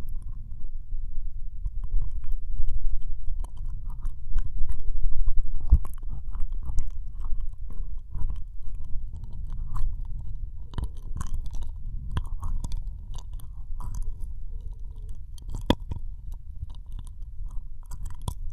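Ear-licking ASMR: wet tongue and lip sounds close against the right ear of a binaural microphone, a run of small wet clicks and smacks over a low rumble.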